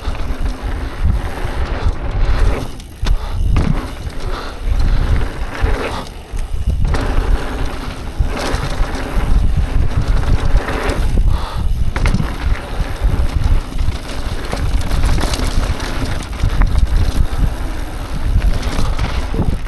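Mountain bike riding fast down a dirt jump trail: wind buffets the microphone, and the tyres rumble and the bike rattles over rough ground, with a few brief lulls.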